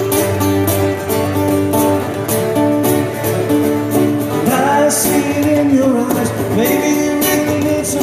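Live acoustic music: strummed acoustic guitar chords, with a voice singing a bending, wordless line in the second half.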